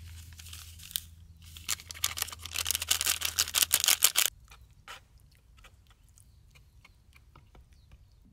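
Chopsticks stirring instant noodles in a disposable cup-noodle bowl: a quick run of clicks and scrapes for a couple of seconds, then a few scattered taps.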